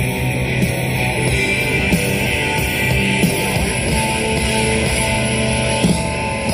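Loud rock music with heavy electric guitar, playing steadily.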